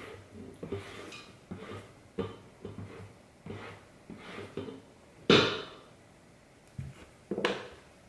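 Silicone spatula scraping chopped cabbage off a cutting board into a multi-cooker pot, a quick run of short scrapes and taps, with a louder knock about five seconds in and two more knocks near the end as the board and spatula are set down on the counter.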